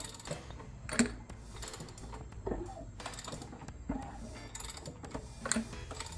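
Ratchet wrench turning an engine's crankshaft over by hand in repeated strokes, its pawl clicking in short runs on each back-swing. Single knocks come between the runs, the sharpest about a second in.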